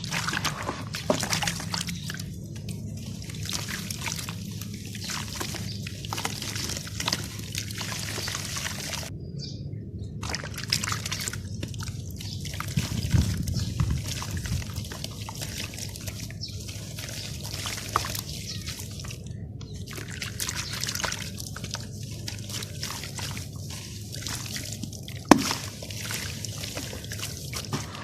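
Crunchy sand-cement crumbling into water: a steady fizzing trickle full of small crackles. It breaks off briefly about nine seconds in, and there is one sharp snap near the end.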